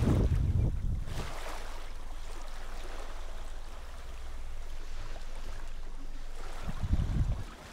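Wind buffeting the microphone on a sailboat's deck, dropping away about a second in to the quieter steady background of the boat's cabin with a low hum. A few soft bumps come near the end.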